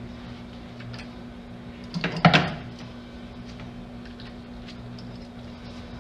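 A brief clatter of a few sharp knocks about two seconds in, over a steady low hum.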